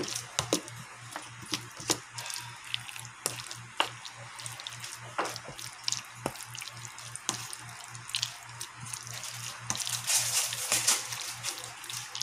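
Squid rings being mixed by hand in a wet egg, cornstarch and flour batter, making irregular wet clicks and slaps that get denser and louder about ten seconds in. A low pulsing hum runs underneath.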